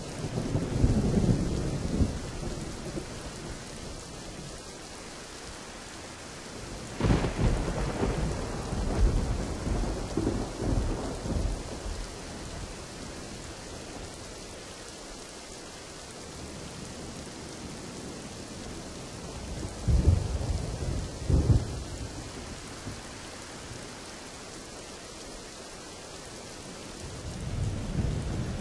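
Thunderstorm: steady heavy rain hiss with rolls of thunder rumbling over it, one about a second in, a longer one about a quarter of the way through, a sharper pair of cracks past two thirds, and another swelling near the end.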